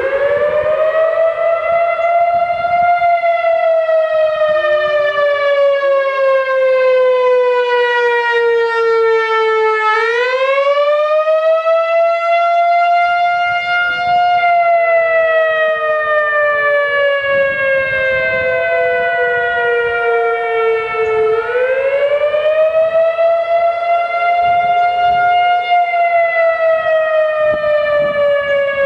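Whelen WPS 3016 single-tone electronic outdoor warning siren sounding its wail tone and performing normally. The pitch rises quickly to a peak, then falls slowly, and the cycle repeats about every eleven seconds.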